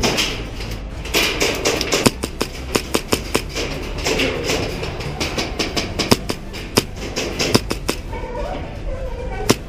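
Airsoft guns firing in the arena: irregular sharp snaps, often several a second, with one sharper crack near the end.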